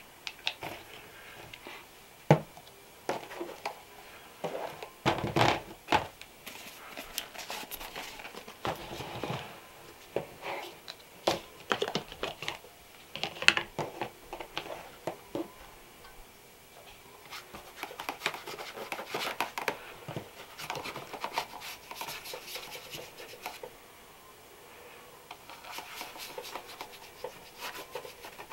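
Hands working on leather shoes with shoe-care tools: irregular scratchy rubbing and scraping, broken by sharp clicks and knocks as the shoe and tools are handled, with a denser stretch of rubbing about five seconds in.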